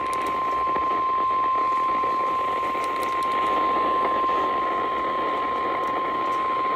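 NOAA Weather Radio warning alarm tone: a single steady high-pitched tone at about 1050 Hz over radio static hiss, heard through a weather radio receiver. The tone signals that a warning message is about to be broadcast.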